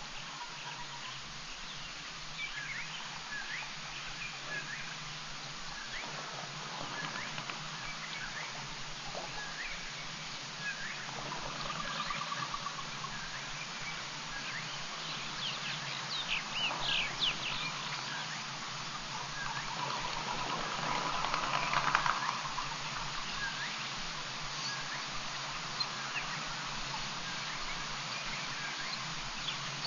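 Outdoor bush ambience: birds call in short, repeated chirps, with a denser burst of calls about halfway through and again about two-thirds of the way in, over a steady low hum and hiss from the webcam's microphone.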